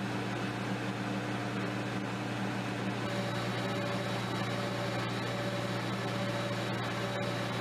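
Steady, even machinery hum with a faint high whine through it, from the radar post's equipment as the mast-mounted radar antenna turns. A second, higher tone joins the hum about three seconds in.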